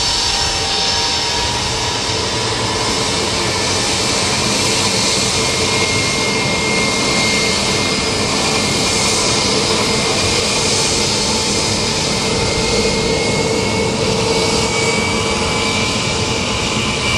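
Tupolev Tu-154 jet engines running loudly as the airliner lands and rolls out, with dense, steady jet noise and a high whine that rises slowly in pitch over the second half.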